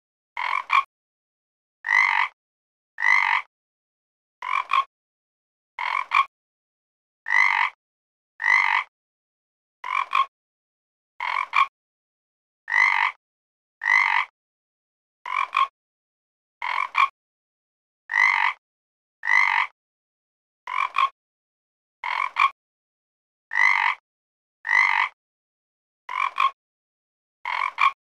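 A frog croaking over and over: short, separate croaks about one a second, with silence between them.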